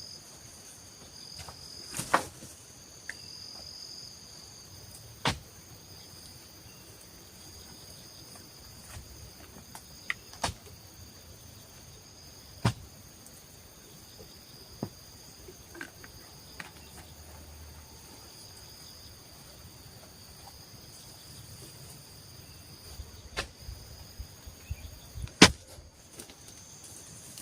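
Steady high-pitched chorus of night insects, such as crickets, with a handful of sharp taps or clicks scattered through it, the loudest near the end.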